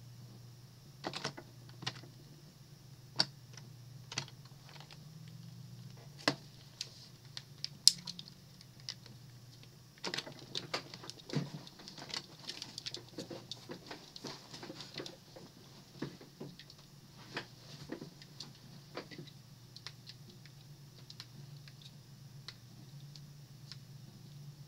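Computer keyboard typing: scattered, irregular keystroke clicks, a few at a time at first and busier from about ten seconds in until about twenty, over a faint steady low hum.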